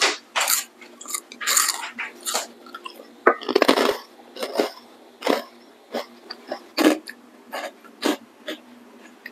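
Close-miked crunching of crispy fried snacks being bitten and chewed: a quick, irregular run of sharp, crisp crunches, loudest about three and a half seconds in.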